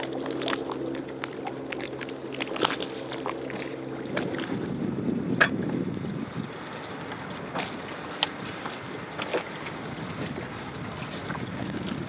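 Boat's outboard motor idling steadily, stopping about four seconds in, with wind on the microphone and water moving against the boat, and scattered small clicks.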